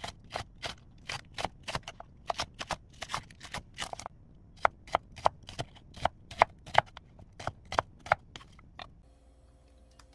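Chef's knife slicing a green onion, then an onion, on a wooden cutting board. It makes a quick run of crisp chops, about three a second, with a short break about four seconds in, and stops about nine seconds in.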